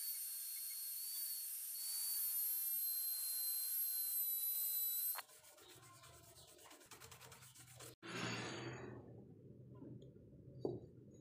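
Handheld rotary tool with a pink grinding stone grinding the steel face of an axe head: a steady high whine over a hiss. It cuts off about five seconds in, and a stiff brush then scrubs the steel in quick, scratchy strokes.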